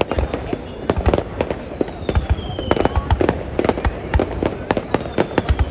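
Fireworks display: a dense, irregular run of sharp bangs and crackling over a steady rumble, with a faint falling whistle from a shell about two seconds in.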